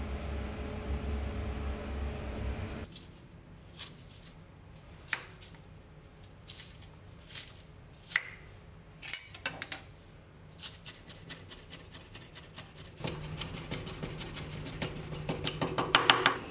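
A steady low hum that cuts off about three seconds in, followed by scattered single clicks and knocks. These give way to a rapid, even run of knife strokes chopping food on a wooden cutting board, which grow louder toward the end.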